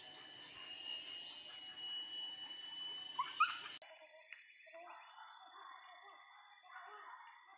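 Boar-hunting dogs whining, with two short rising yelps about three seconds in, over a steady high drone of forest insects. Just before four seconds the drone changes abruptly to a steadier, higher single note, and faint short calls continue beneath it.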